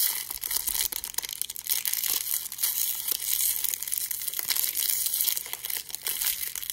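Crinkly pink wrapper rustling and crackling in the hands as it is pulled open, a dense run of small crackles throughout.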